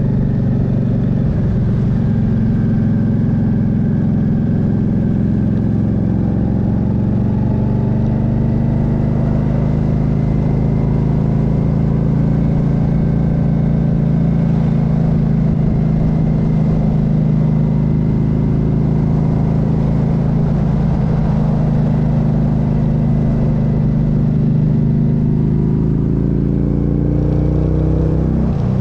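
Motorcycle engine running steadily while cruising, with wind rush on the microphone. The engine note drops briefly about a second in and rises near the end.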